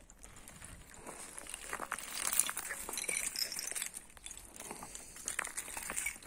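Puppies rummaging and scuffling over dry debris and rubble: scattered rustling, crackling and small clicks, busiest about two to four seconds in.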